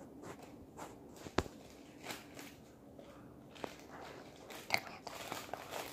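Scattered light clicks and rustling from things being handled close by, with one sharp click about a second and a half in and another near the end.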